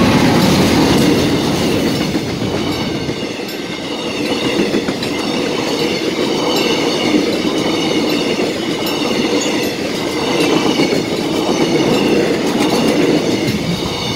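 Mugunghwa-ho passenger train, hauled by a Korail 8200-class electric locomotive, passing at close range. The locomotive goes by in the first second, loudest there, then the coaches roll past with a steady rumble and clickety-clack of wheels over the rails.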